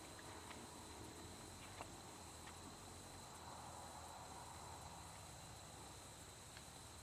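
Near silence: faint outdoor background with a steady high-pitched whine and a few faint ticks.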